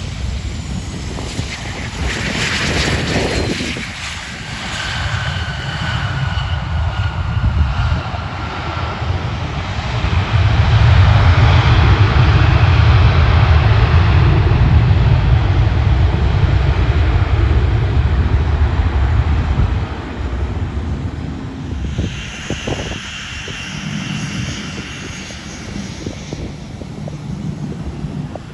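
Airplane engines as an aircraft passes close by. A whine falls slowly in pitch early on, a heavy low rumble builds to its loudest in the middle, and it eases off about twenty seconds in.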